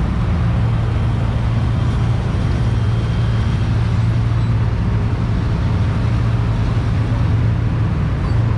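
A motor vehicle's engine running at a steady low hum, with no change in speed.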